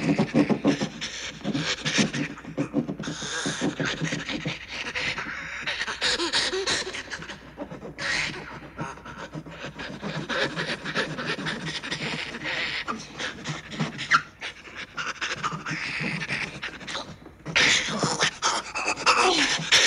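Horror film soundtrack: frantic, rapid panting and snarling sounds with scrapes and knocks, as the wooden fetish doll trapped in a suitcase pushes its knife blade up through the lid. The sound grows louder near the end.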